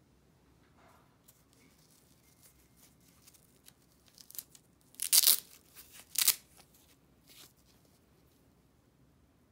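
Hook-and-loop fastener on a wig's headband strap being pulled apart: two short, loud tearing rips about five and six seconds in, with softer fabric handling noises around them.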